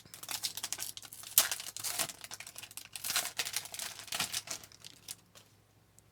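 Trading card pack wrapper crinkling and tearing as it is opened by hand: a dense run of crackles that stops about five seconds in.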